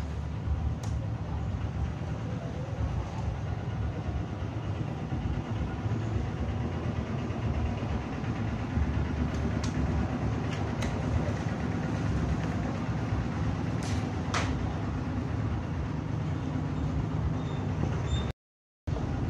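A steady low rumble of background noise, with a few light clicks and taps from a steel tape measure being handled.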